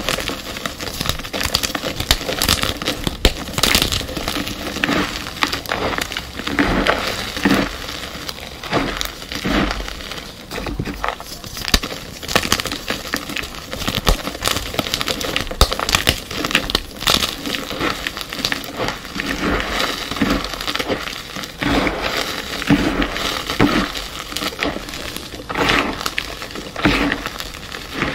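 Pasted gym chalk blocks being crushed, giving a dense, continuous crunching and crackling.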